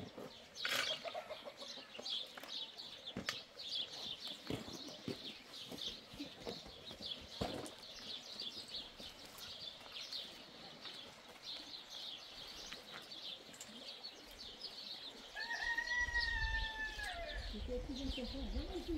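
Small birds chirping throughout, with a rooster crowing once near the end. A low rumble starts at about the same time as the crow.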